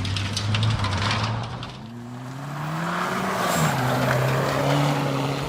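Rally car engine running under load, with crackling clicks over the first second and a half; about two seconds in the note dips, then rises and drops back a little before four seconds, as at a gear change, and holds steady.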